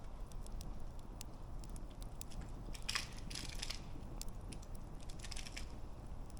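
Wood campfire burning: a low steady rumble with scattered sharp crackles and pops, and denser bursts of crackling about three seconds in, the loudest, and again a little after five seconds.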